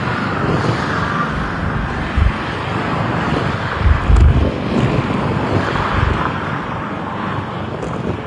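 Jet airliner engines running as a steady wide noise, with wind knocking on the microphone about two seconds in and again around four seconds in.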